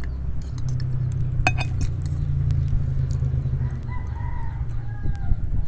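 Steady low rumble throughout, with a couple of sharp clinks of metal cutlery against a glass plate about a second and a half in. A faint, drawn-out call with two pitches sounds in the second half.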